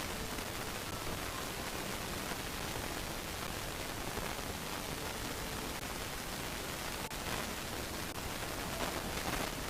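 Steady hiss of static noise, even across the whole range, without clear events.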